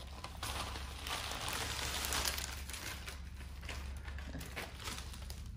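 Wrapping being torn open and handled as a wrapped gift is unpacked: a continuous crinkling rustle made of many small crackles.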